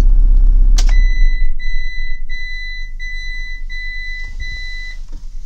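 The motorhome's Euro 6 engine runs briefly and is switched off with a click about a second in. A warning chime then beeps about six times, evenly and at a steady high pitch, after the engine stops.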